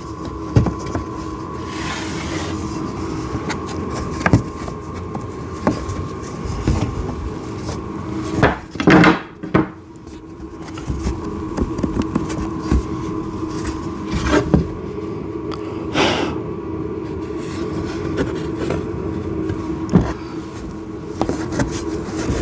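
Wooden table parts being handled and fitted together: scattered knocks and clicks, with louder sliding or scraping noises about nine seconds in and again around sixteen seconds, over a steady background hum.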